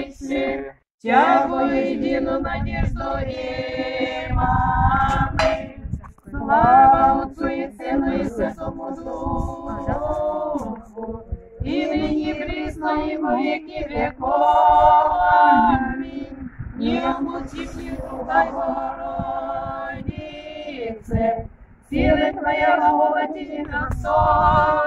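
A small group of mostly women's voices singing an Orthodox liturgical chant unaccompanied, in phrases of held notes with short breaks between them.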